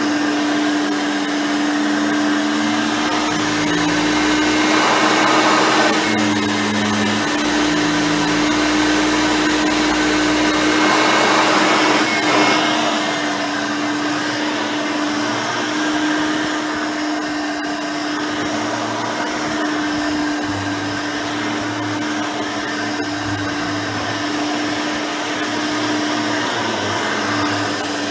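Hoover Elite 5.0 upright vacuum running, its rebuilt original 5-amp motor giving a steady hum with a constant whine over the rush of air. The rush briefly swells twice, a few seconds in and about twelve seconds in.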